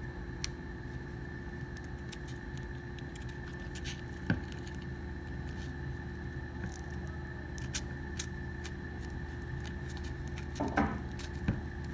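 Faint handling noises, small clicks and taps, as a stick-on grip panel is pressed and rolled onto a Glock 19's polymer frame, with one sharper click about four seconds in. A steady electrical hum runs underneath.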